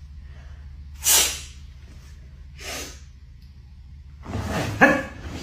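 A person sneezing: a sharp, breathy sneeze about a second in, a weaker breathy burst near three seconds, then a louder voiced sneeze with a sharp peak just under five seconds in. A steady low hum runs underneath.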